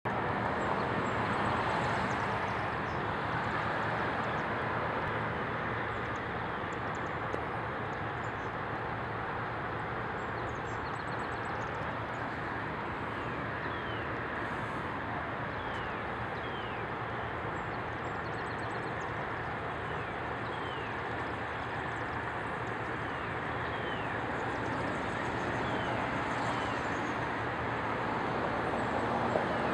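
Steady distant city traffic noise heard over the skyline, with a bird's short falling chirps repeating every second or two from about halfway through.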